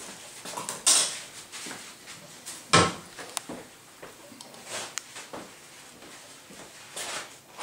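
A few short handling knocks and rustles, the loudest a sharp knock about three seconds in.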